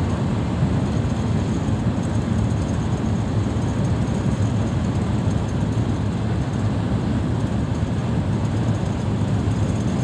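Steady rumble of tyres and engine inside a vehicle cruising at motorway speed.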